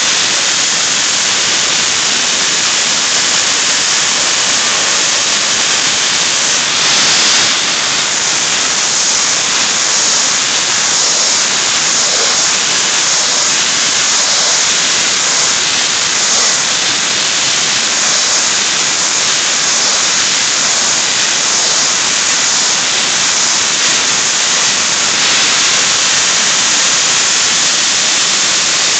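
Soda blasting nozzle hissing steadily as it blasts scale off a stainless steel heat exchanger plate. It is a continuous rush of compressed air and soda media, swelling slightly now and then as the nozzle moves.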